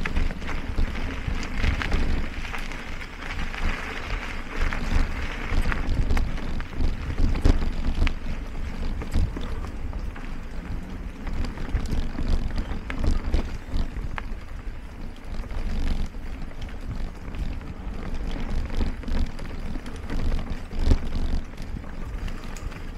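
Mountain bike riding over a rough dirt and rock trail: steady wind buffeting on the microphone and tyre rumble, with frequent sharp rattles and clicks as the bike jolts over bumps.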